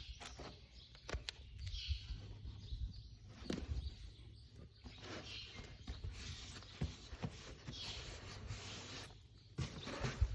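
Rustling and scattered light knocks and clicks of nest-building material being handled and arranged, in a few separate stretches of rustling, over a steady low hum.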